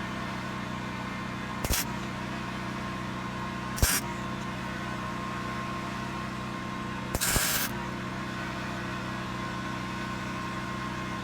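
A steady machine hum with three short hissing bursts, the last one longest, at about half a second.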